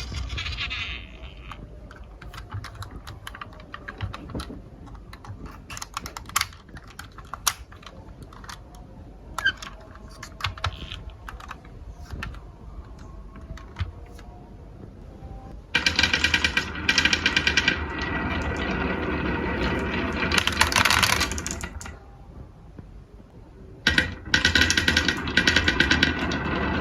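Marbles clicking and rattling as they roll down a marble run: scattered separate clicks at first, then much louder, dense continuous rattling from about two-thirds of the way in, with a brief lull before it picks up again.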